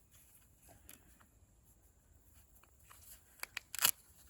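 Buckeye husk being peeled open by hand: faint handling, then a few sharp cracks near the end as the husk splits.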